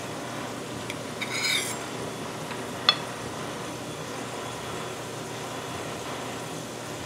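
Steady background hiss, a short scrape of a metal pie server across a ceramic plate about a second in as a cornbread wedge is lifted onto a plate, then a single sharp clink of dishware about three seconds in.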